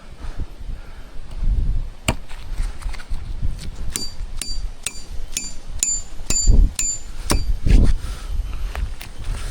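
Repeated sharp metal strikes, each ringing briefly with a bright tone, about two a second for a few seconds from about four seconds in. Low thumps and rustling run beneath them.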